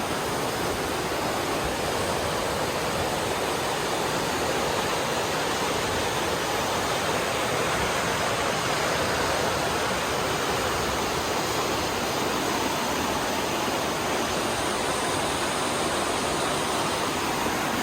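Fast white water of the Aare river rushing through a narrow rock gorge, a steady even rush with no change.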